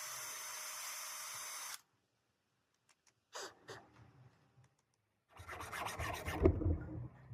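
A steady high whir that cuts off suddenly about two seconds in, then a brief scrape, and later a longer rasping rub with a heavy knock near the end, the loudest moment.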